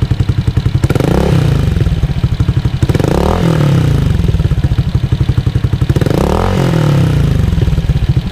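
Honda Airblade scooter's single-cylinder engine, bored up to 170cc, idling through a Yoshimura Alpha carbon aftermarket exhaust that still has its silencer insert. It is blipped three times, the revs rising and falling each time. The exhaust note is quiet for an aftermarket pipe.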